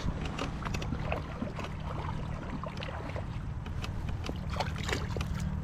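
Small irregular ticks and splashes of water lapping against a plastic kayak hull, over a steady low machine hum.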